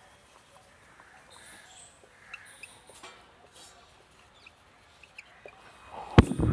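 Faint high squeaks of a marker writing on a whiteboard over quiet room tone, then a sudden loud knock or thump near the end.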